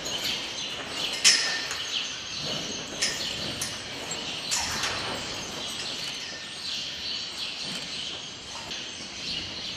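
Small birds chirping over the barn's background noise, with a few sharp knocks about one, three and four and a half seconds in.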